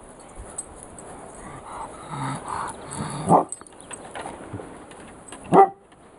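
Dogs at play: some low vocalising from a dog, then two short, sharp barks, one about three seconds in and one near the end.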